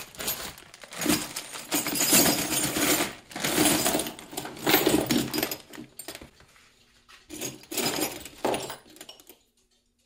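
A handful of loose steel rods clattering and jangling against one another as they are dumped onto a bench and sorted through by hand, in several rattling bursts that die away near the end.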